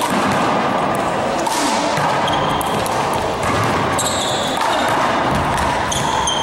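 One-wall handball rally: the small rubber ball slaps against the wall and bounces on a hardwood gym floor, with sneakers squeaking briefly a few times as the players cut and run.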